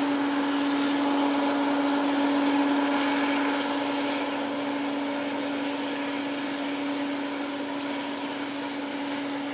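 Loaded ore train rolling past, a steady hum over the running noise of the wagons, slowly fading.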